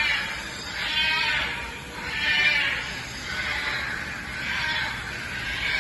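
A parrot squawking over and over, with a harsh, nasal call about once a second.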